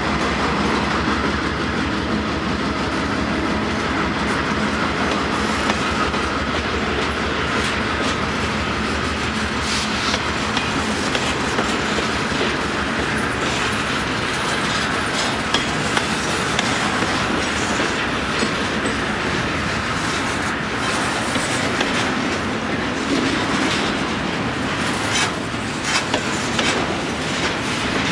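Double-stack container well cars of a freight train rolling past: a steady rumble of steel wheels on rail with scattered clicks as the wheels cross rail joints. The clicks come thicker and louder near the end.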